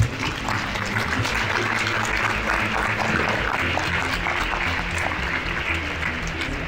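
Audience applauding steadily, the dense clapping of a large seated crowd, over background music.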